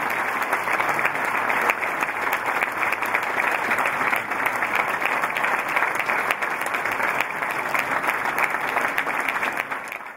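Audience applauding steadily, a dense mass of many hands clapping, fading out at the end.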